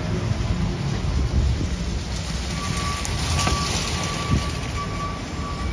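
Street ambience: a fluctuating low rumble of wind on the microphone over the steady hiss of city traffic. From about halfway a faint high tone sounds on and off, with a single short click just after.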